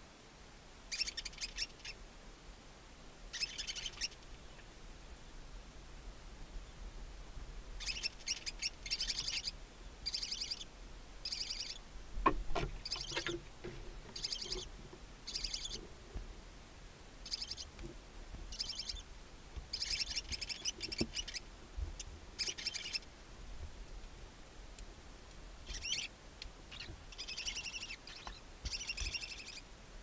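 Barn owls giving short raspy, hissing calls, repeated every second or two, typical of owlets begging in the nest. About twelve seconds in there is a loud thump as an adult barn owl lands in the nest box.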